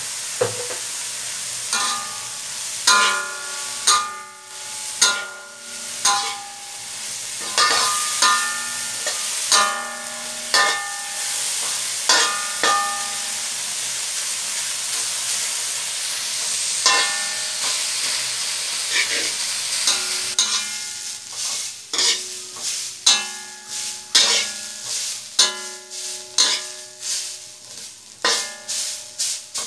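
Shredded ginger and pork sizzling in a metal wok as a metal spatula stirs and scrapes, each strike making the wok ring briefly. The strikes come in clusters, sparser in the middle and quick and dense near the end.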